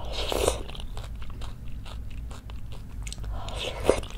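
Close-miked chewing of a spoonful of rice topped with tender chicken from a spicy braised chicken stew, heard as many small wet mouth clicks and smacks. There is a brief noisy patch as the spoonful goes in and another shortly before the end.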